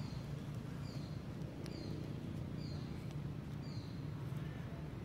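Short, high chirping calls, each falling slightly in pitch, repeated about once a second over a steady low hum.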